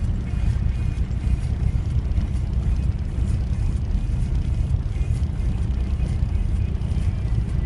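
Steady low rumble of a vehicle driving, engine and road noise, with no sharp impact standing out.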